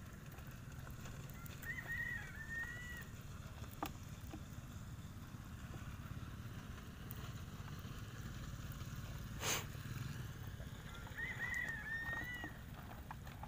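A bird gives the same short warbling call twice, about nine seconds apart, over a steady low rumble, with a couple of sharp knocks in between.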